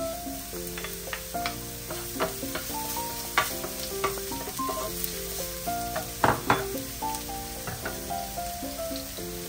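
Food sizzling in a frying pan while being stirred, with sharp knocks of a utensil against the pan, the loudest two in quick succession about six seconds in. Background music with a simple stepping melody plays throughout.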